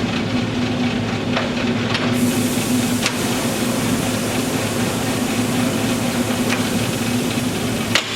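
Engine lathe running under power: a steady mechanical hum and whir from the spindle drive and gearing, with a few sharp clicks.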